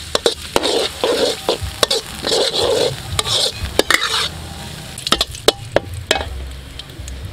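Metal spatula scraping and knocking against a steel wok while stirring small pieces frying in hot oil, with a light sizzle. Sharp clicks where the spatula strikes the wok, with a quick run of scraping strokes in the first half.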